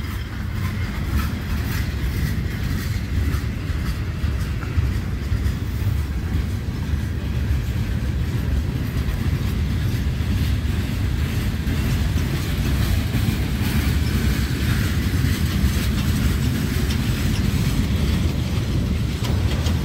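Canadian Pacific freight train's cars rolling past close by: a steady low rumble of steel wheels on the rails, with some clickety-clack.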